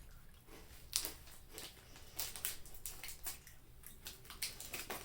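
Faint, irregular crunching of someone chewing a hard, cheese-flavoured stick snack.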